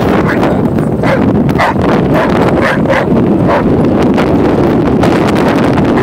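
Strong wind buffeting the microphone in a steady rumble. Over it, about five short vocal sounds come from two dogs, an English Mastiff and a Giant Schnauzer, as they play-fight, between one and three and a half seconds in.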